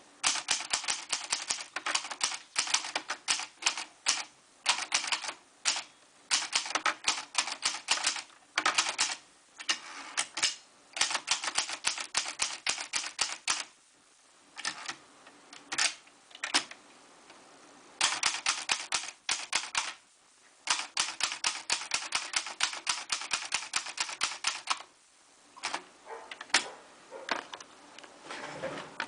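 Hermes Baby manual portable typewriter with Hebrew type being typed on: rapid runs of key strikes lasting several seconds each, broken by a few short pauses.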